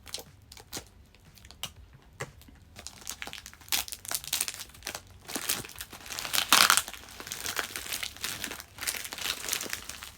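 Plastic mailing bag crinkling while packing tape is worked and pulled off it, sparse small rustles and clicks at first, then steady crinkling with a louder tearing rip about six and a half seconds in.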